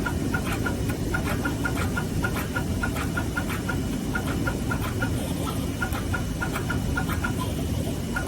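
Machinery running with a steady low rumble, overlaid by a quick, uneven series of short high clicks, about three or four a second.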